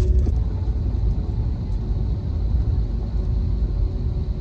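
Steady low rumble inside an Airbus A320's cabin as the airliner taxis, engines at idle, with a faint steady whine over it.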